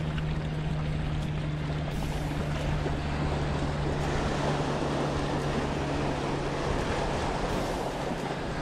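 Wind on the microphone and small waves washing against shoreline rocks, under a steady low hum that fades out near the end.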